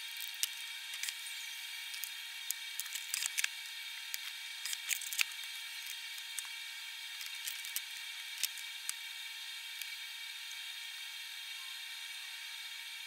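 Stovetop cooking: a steady sizzling hiss with scattered crackles and pops, busiest in the first half, from a beef steak frying in a pan beside pots boiling on a gas stove.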